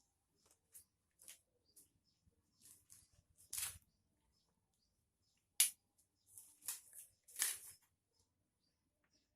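Scattered soft clicks and rustles, irregular, with a few louder ones around the middle and later: small objects being handled in a small room.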